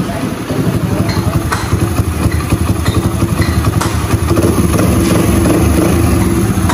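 Honda 67's small single-cylinder engine, converted to fuel injection, idling steadily: smooth and very quiet, a sign the new injection setup is running well.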